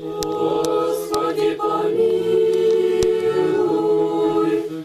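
Congregation of men's and women's voices singing an Orthodox liturgical chant without instruments, holding long drawn-out notes, with a sharp click about three seconds in.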